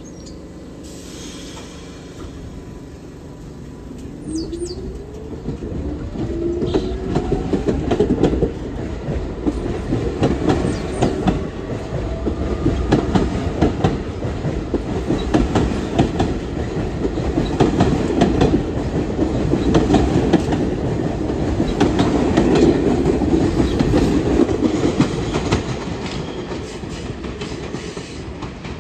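R68-series New York City subway train pulling out: a rising motor whine starts about four seconds in, then the wheels clatter rapidly over the rail joints as it gathers speed, fading near the end.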